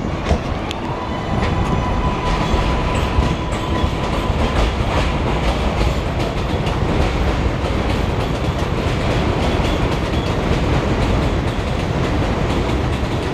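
New York City subway No. 4 train of R142A cars running along an elevated platform: a steady rumble of wheels on rails with scattered clicks, and a steady high tone over the first few seconds.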